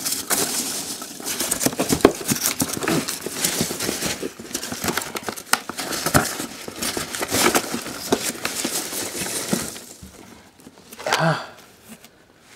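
Foam packing peanuts rustling and squeaking against each other and the cardboard box as a hand rummages through them, a dense crackle for about ten seconds that then dies away.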